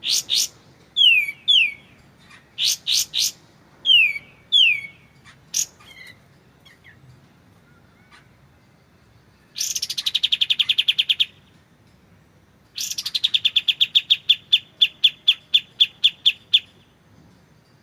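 Kapas tembak songbird singing: a few clear whistled notes that slide downward and some sharp short calls, then two fast rattling trills, the second longer at about six or seven notes a second.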